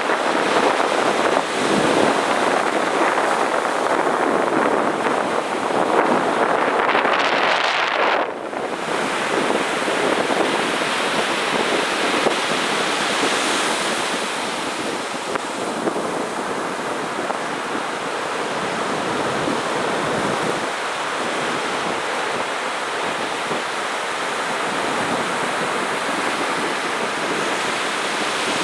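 Heavy surf breaking on a sandy beach: a continuous wash of waves. One wave swells up and drops away abruptly about eight seconds in, then the steady rush of surf carries on.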